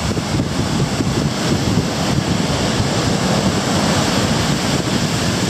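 Heavy surf from a rough sea, waves breaking and washing up the beach in a steady roar, with wind buffeting the microphone.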